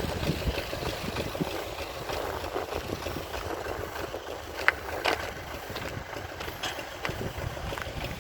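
Wind rumbling on the microphone, with two sharp clicks a little after the middle.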